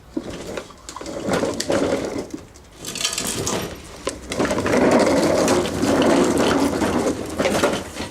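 Petrol walk-behind lawn mower being pull-started: several pulls of the recoil cord turn the engine over in uneven bursts just before it catches.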